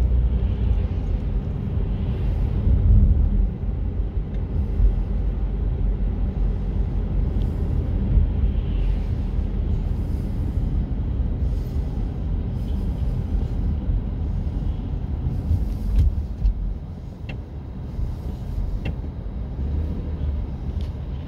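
Steady low rumble of vehicle engines and road noise, heard from inside a car following a semi-truck slowly through a roundabout, with a few faint clicks in the later part.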